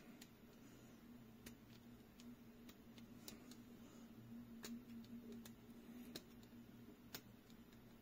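Faint, irregular small clicks and taps as the metal parts of a disassembled push-button fidget toy are handled in the fingers, over a faint steady hum.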